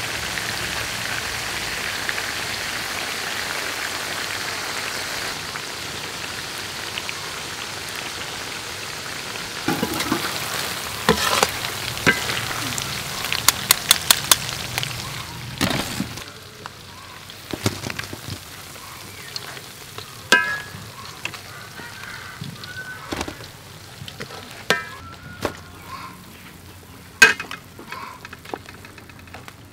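Tiger shrimp deep-frying in a wok of hot oil, a steady sizzle. About ten seconds in come sharp metal clinks and knocks as the shrimp are lifted out with a wire strainer and spatula. The sizzle dies down at around sixteen seconds, leaving scattered clinks.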